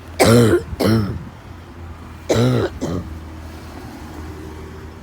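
A person coughing hard: two pairs of loud, voiced coughs about two seconds apart, over a steady low hum.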